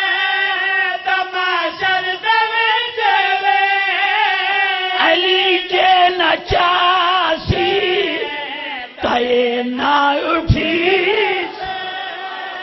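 A man's voice chanting a devotional verse through a microphone: long, drawn-out melodic notes sung high and wavering, with short breaks between phrases. It fades away near the end.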